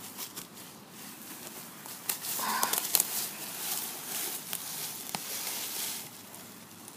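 Dry leaves and twigs crunching and rustling as a limp body is dragged across a leaf-covered forest floor, with scuffing footsteps. It gets louder about two seconds in and eases off near the end.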